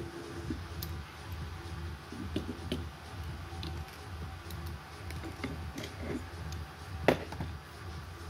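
Small metal washers and parts clicking and tapping on a tabletop as they are handled and set down, with one sharper click about seven seconds in, over a steady low hum.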